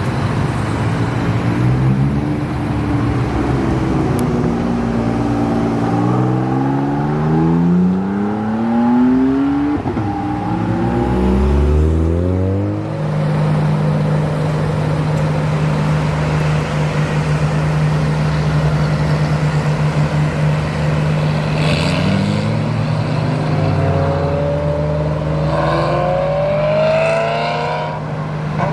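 High-performance car engines accelerating hard, their note rising as the revs climb, with a drop at a gear change and a second climb. Then comes a steady engine drone, and another car begins revving up near the end.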